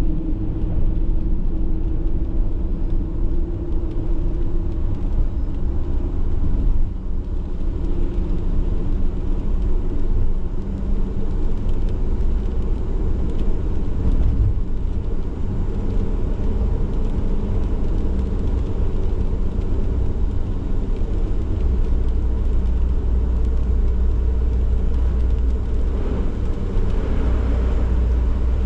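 A van driving on a wet road, heard from inside the cab: a steady low rumble of engine and tyres.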